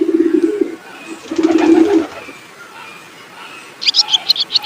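Pigeon cooing: two low, rolling coo phrases, one at the start and one about a second and a half in. Near the end, rapid high-pitched chirping from a small bird begins.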